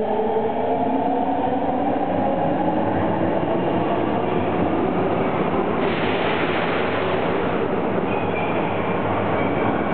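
Osaka Metro Sennichimae Line subway train pulling out of the station: a whine that rises in pitch as it gathers speed, over a steady rumble of wheels on rail. A burst of hissing noise comes about six seconds in and lasts about a second and a half as the last car passes and the train runs off.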